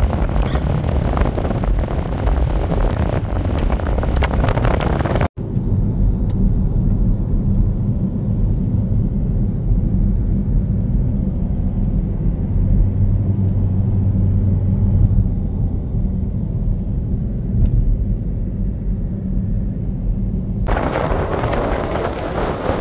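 Moving vehicle: wind buffeting the microphone for the first five seconds, then, after a sudden cut, a steady low engine and road rumble, with the wind noise coming back near the end.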